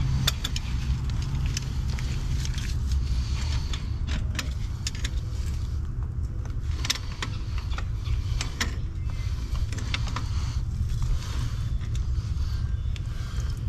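Scattered small metal clicks and scrapes as a brass hose faucet is turned into its threaded fitting and tightened with pliers, over a steady low rumble.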